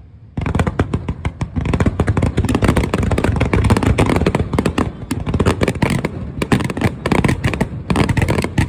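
Fireworks display: a rapid barrage of many aerial bursts and sharp crackling bangs, coming in thick succession from about half a second in and thinning a little near the end.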